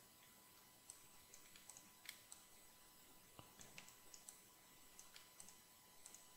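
Faint, irregular clicks of a computer mouse and keyboard, over a low hiss.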